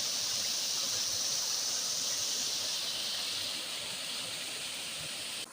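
Waterfall's falling water: a steady rushing hiss that eases slightly past the middle.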